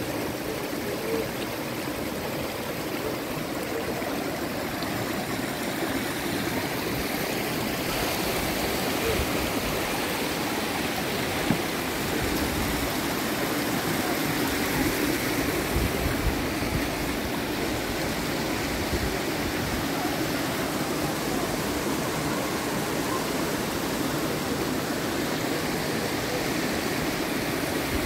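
Steady rush of flowing water, like a stream, with a single brief knock about eleven seconds in.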